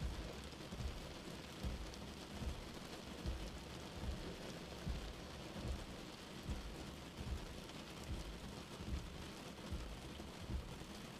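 Steady rain falling on glass, an even hiss with soft low thumps recurring a little more than once a second.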